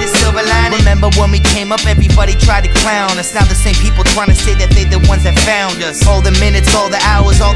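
Hip-hop music: a rap track over a heavy, pulsing bass beat.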